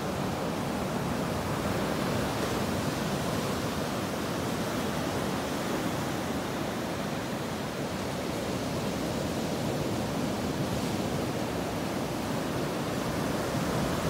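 Small sea waves breaking and washing up a sandy beach: a steady rushing surf with no distinct swells or breaks.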